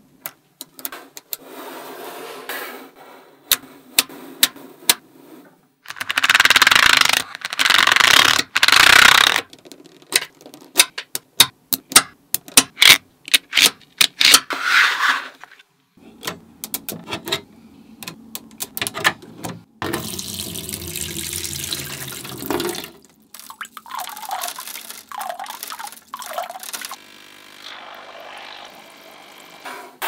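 Small neodymium magnet balls clicking and snapping together as they are handled and pressed into place, with several stretches of a loud rushing rattle, the loudest some six to nine seconds in, as many balls slide and roll together.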